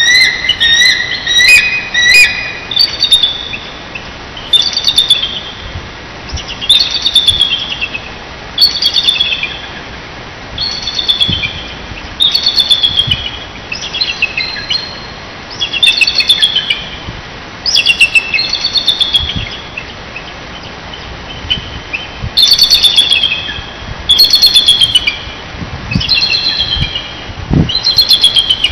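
Bald eagles calling back and forth. Each call is a series of high, thin, chittering notes that fall in pitch, repeated every second or two. Two voices overlap in the first couple of seconds.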